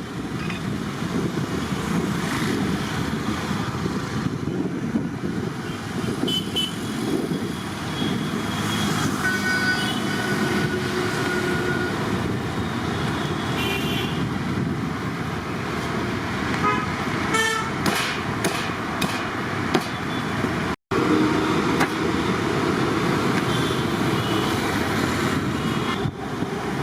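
Street traffic rumbling steadily, with vehicle horns honking several times, one held for a couple of seconds.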